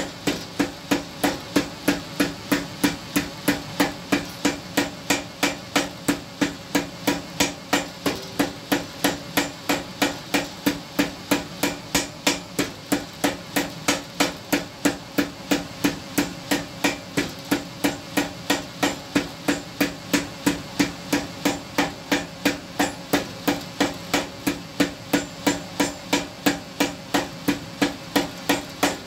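Blacksmith's hammer striking iron on an anvil in a steady, even rhythm of about three blows a second, with a ringing tone under the blows, forging a tenon.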